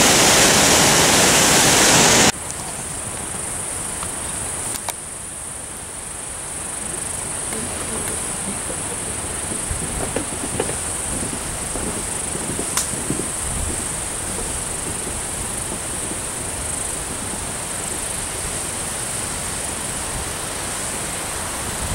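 Roar of rushing whitewater from the Maskinongé River falls that cuts off abruptly about two seconds in. After that, a steady high-pitched insect drone over a soft hiss of distant rushing water, with a few faint clicks.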